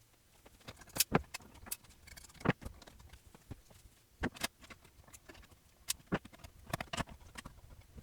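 Irregular clicks and light knocks of small parts being handled and fitted: a circuit board and its hardware going into a typewriter's case.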